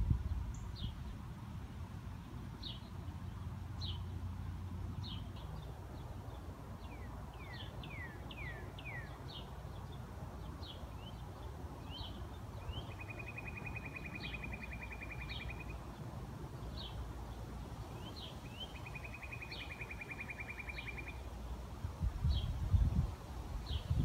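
Small birds chirping: short high chirps about once a second, a few quick falling chirps, and twice a rapid dry trill lasting two or three seconds, over a steady outdoor background. A few low rumbling bumps near the end.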